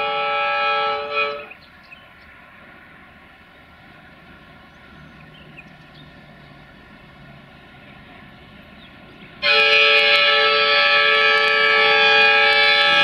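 Horn of an LDE2100 diesel-electric locomotive. A sustained blast cuts off about a second and a half in. Several seconds of the approaching train's quieter running follow, then a loud sustained blast starts suddenly near the end.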